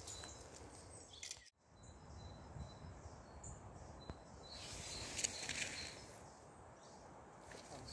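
Faint outdoor woodland ambience: low, even background noise with a few short high chirps, cut off briefly about a second and a half in.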